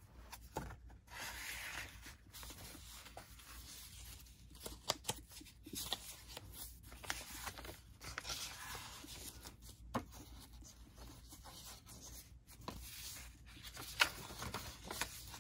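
Paper rustling as the pages, tags and journaling cards of a handmade junk journal are handled and turned, with soft taps and a sharper click about ten seconds in and another near the end.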